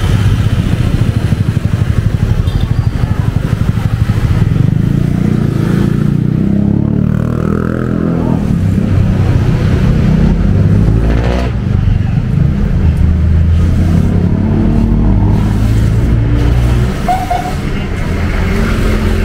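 Motorcycle engine running at low road speed, a steady low note whose revs rise and fall a few times about halfway through.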